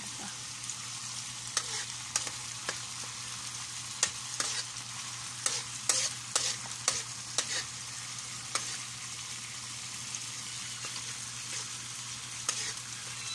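Food frying in a steel wok with a steady sizzle, while a metal spatula stirs it, clinking and scraping against the pan in short sharp strokes that come thickest in the middle.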